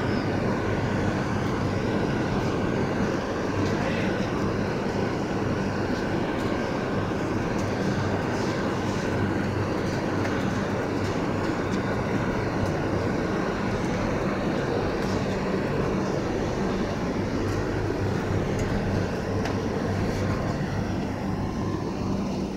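Steady, unbroken background rumble with a low mechanical hum underneath, like traffic or machinery, with no distinct events.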